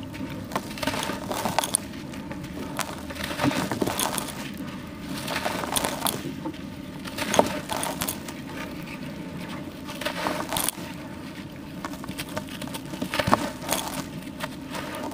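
Dusty charcoal slabs crumbled and squeezed by hand over a plastic tub: irregular gritty crunching and crackling as crumbs and powder fall, with a sharper crack about halfway and another near the end.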